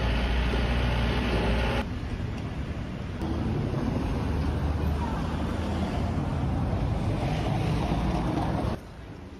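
Wind buffeting the microphone over a low engine rumble, in a few short outdoor clips cut together, each starting and stopping abruptly.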